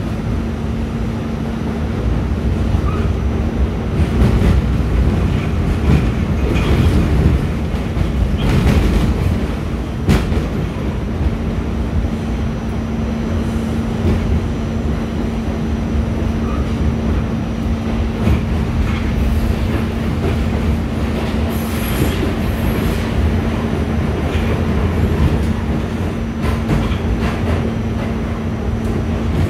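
R46 subway car running on the rails, heard from inside: a steady loud rumble of wheels on track with scattered rail clacks. A steady low hum drops out for several seconds and comes back. A brief high wheel squeal comes about three quarters of the way in.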